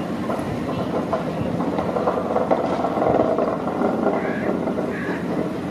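A steady engine drone, like a motor idling, with indistinct voices in the background.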